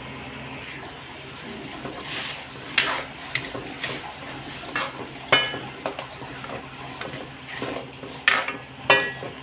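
Metal ladle stirring broth in an aluminium wok, scraping and swishing with sharp clanks against the pan, a few of them ringing briefly. The stirring starts about two seconds in, over a steady low hum.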